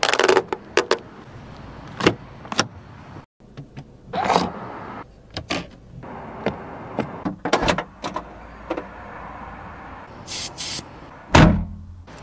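A string of sharp clicks, latch knocks and thumps from a Mercedes-Benz C-Class sedan's trunk release, doors and cabin controls, ending in a heavy thump like a door or trunk lid shutting about eleven seconds in.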